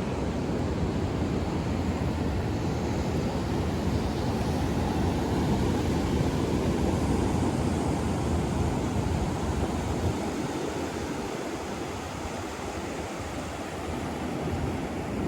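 Ocean surf washing on the beach, with wind buffeting the microphone. The rush eases for a few seconds past the middle, then builds again near the end.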